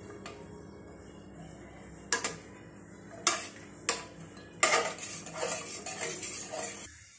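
Spatula knocking and scraping against the side of a pressure cooker while stirring a thin curry: several sharp clinks about two seconds in and over the next few seconds, then a run of quicker scraping and clattering near the end.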